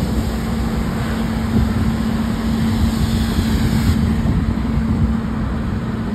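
Fire engine's engine and pump running steadily while supplying a hose line, a constant hum that fades near the end, over the rush of the hose stream and low wind rumble.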